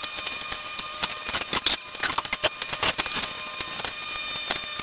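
Clear plastic wrap crinkling and rustling in quick, sharp crackles as it is pulled off steel roll-cage tubing, over a steady high-pitched whine.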